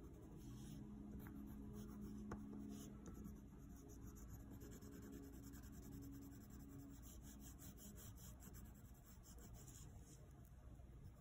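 Colored pencil scratching faintly on paper in quick, irregular shading strokes, with a faint steady low hum underneath.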